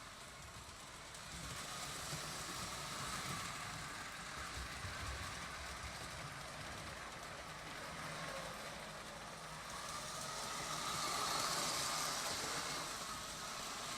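Lionel 2037 O gauge steam locomotive running under power, its electric motor and wheels giving a steady whirring rattle on the metal track as it pulls six cars uphill. It grows louder for a few seconds near the end.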